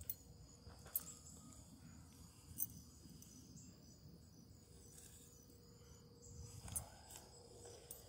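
Faint insect chorus in late-summer grass: a steady high trill with pulsing chirps above it. A few soft clicks sound along the way.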